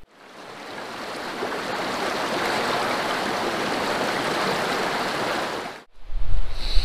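Shallow stream running over rocks and riffles, a steady rushing that fades in over the first couple of seconds. It cuts off near the end, replaced by a low rumble of wind on the microphone.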